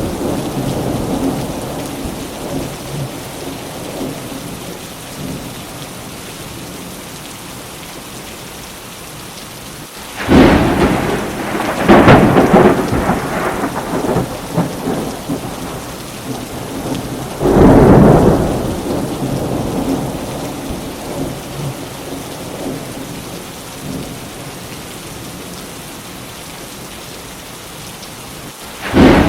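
Thunderstorm: steady rain with rolling thunder. A sudden clap about ten seconds in, another about two seconds later and a third near seventeen seconds each rumble away into the rain, and a new peal breaks at the very end.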